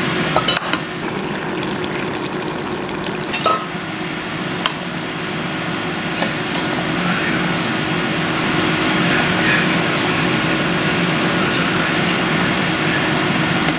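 Metal clinks of a stainless steel saucepan lid and a metal ladle against the pot: a few sharp clinks in the first five seconds, then lighter ticks while stirring. Under them runs a steady hiss of liquid simmering in the pot on an induction cooktop.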